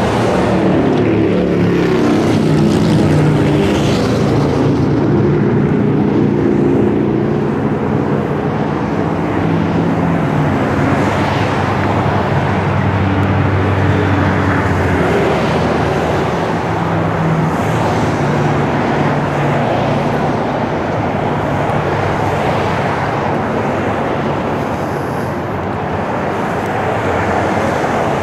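Diesel engine of a Fleetwood Revolution LE diesel-pusher motorhome running steadily at the rear, its low pitch wavering a little.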